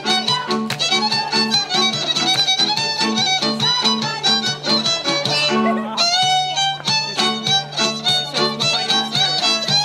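Hungarian folk dance music led by a fiddle, played over a steady, even pulsing accompaniment, with a brief change in the pattern a little past the middle.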